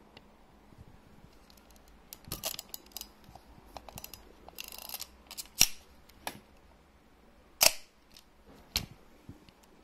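Exakta Varex IIa 35 mm SLR being worked and fired: a run of small mechanical clicks and a short ratcheting wind, then sharp shutter clacks, the loudest about three quarters of the way through.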